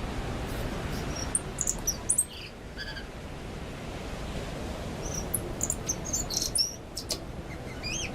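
Tui singing: short high notes, clicks and quick pitch slides in two bursts, with a pause of about two seconds in the middle, over a steady low background noise.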